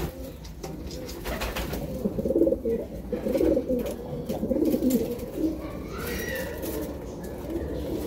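Homing pigeons cooing repeatedly, several low warbling coos overlapping, with a few quick wing flaps. This is the breeding-season cooing of newly paired birds while they gather nest material.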